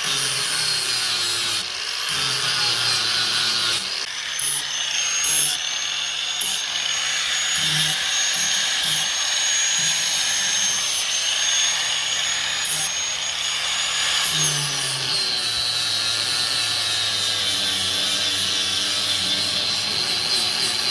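Electric power tool running steadily as it works the weld-filled steel of a skid steer control lever, with a high whine that drops in pitch about two-thirds of the way through as the tool is loaded.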